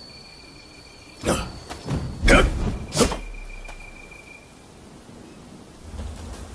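Sword-fight sound effects: three sharp metal clashes about a second apart, each followed by a thin, steady high ringing that fades out a second or so later.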